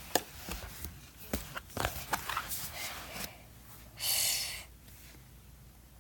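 Handling of a children's sound book: scattered small clicks and taps, then a short rush of noise about four seconds in.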